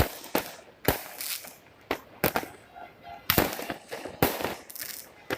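Fireworks exploding: about a dozen sharp bangs at uneven intervals, some trailing off in a brief hiss.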